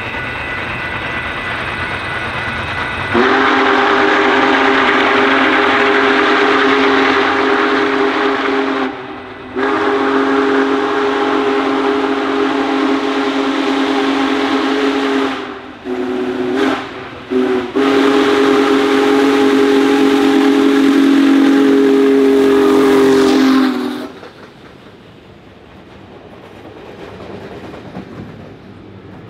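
Union Pacific Big Boy 4014's steam whistle sounding a chord in two long blasts, a short toot and a final long blast, the grade-crossing signal. After it cuts off, the train rumbles on more quietly.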